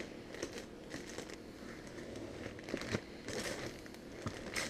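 Plastic zip-top bags crinkling and rustling as they are handled, with a few short sharp clicks.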